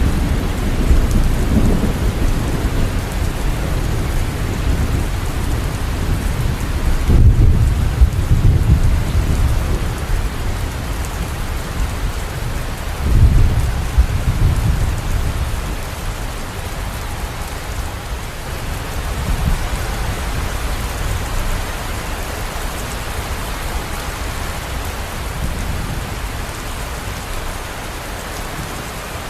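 Steady heavy rain, with two low rolls of thunder rumbling through it, the first about a quarter of the way in and the second just before halfway.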